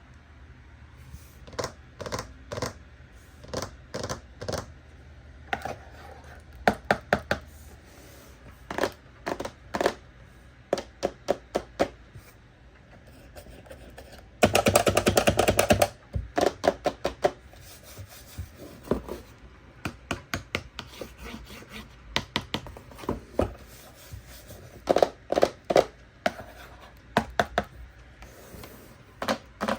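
Toy packaging being handled and opened: a string of irregular clicks, taps and knocks, with a dense burst of rapid crackling lasting over a second about halfway through.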